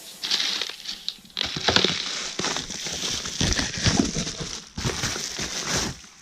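Packaging being handled during an unboxing: irregular crinkling and rustling, with a brief pause about a second in, stopping just before the end.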